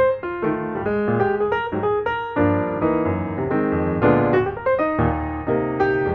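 Background piano music: a melody over chords, played note by note.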